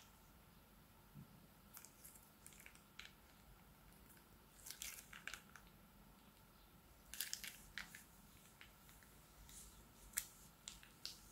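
Faint wet squishing and small crackling clicks of slime being squeezed out of a piping bag and pressed into a bowl of slime, coming in short clusters about five seconds in, again around seven to eight seconds, and once more near the end.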